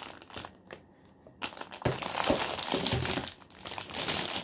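Crinkling of a clear plastic bag holding jigsaw puzzle pieces as it is handled and lifted: a few light crackles at first, then a dense stretch of crinkling from about a second and a half in.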